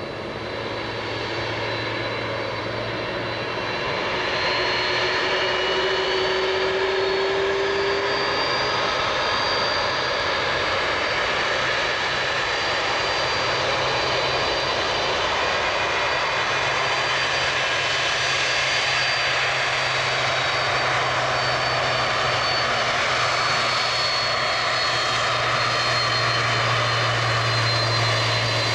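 Boeing 767-300's twin jet engines running at low taxi power as the airliner taxis toward and past. The sound is a steady jet rumble with a thin high whine, building over the first few seconds and then holding steady.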